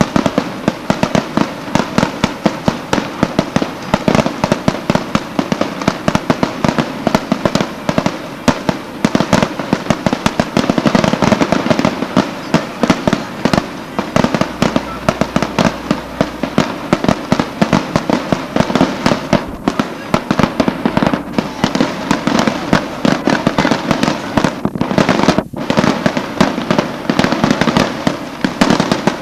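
Aerial fireworks bursting overhead in a long, rapid barrage of bangs, many a second without a break.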